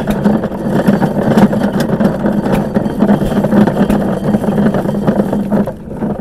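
Cast-iron hand-cranked corn sheller stripping the kernels off an ear of dry field corn: a loud, dense rattle of kernels and gearing with a steady low hum, starting suddenly and stopping shortly before the end.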